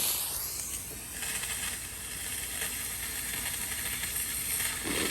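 Handheld steamer hissing steadily as it blows steam into a frozen refrigerator door water line to thaw the ice. A rougher, lower sputter joins in near the end.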